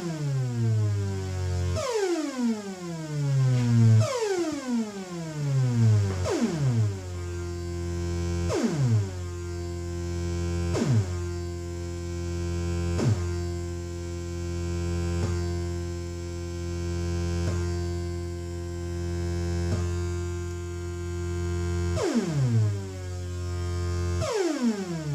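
Future Sound Systems Brunswick analog synthesizer playing a steady low drone, with a falling sweep repeating about every two seconds. The sweeps are shaped by its envelope set to decay only, and they grow shorter in the middle of the stretch, then longer again near the end.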